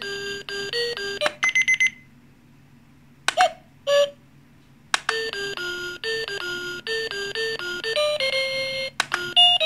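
QILUCK talking alarm clock's small speaker playing its built-in electronic alarm melodies as the tone-select button is pressed to step through them. A short beeping tune gives way to a fast trill of beeps. After a pause of about three seconds with two brief blips, another simple stepped beeping melody starts about five seconds in.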